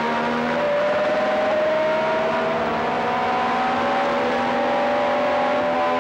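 Matra V12 engine of a 1978 Formula One car heard onboard at high revs, one continuous note whose pitch climbs slowly as the car accelerates along a straight.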